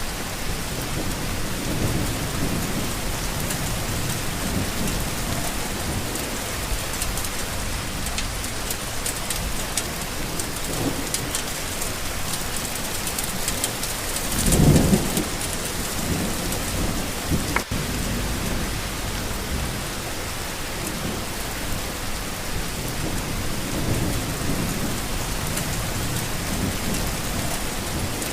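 Steady rain falling, with low rumbles of distant thunder swelling and fading, the loudest about halfway through. A single sharp click comes a few seconds after that rumble.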